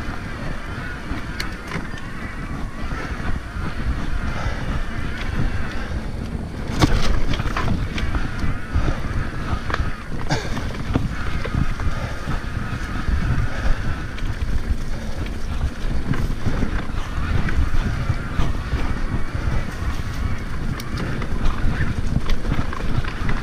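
Mountain bike riding over a rough trail, heard from a helmet-mounted action camera: wind buffeting the microphone and a rumble and rattle from the tyres and bike. Sharp knocks from bumps come through, the loudest about seven seconds in, and a wavering whine comes and goes.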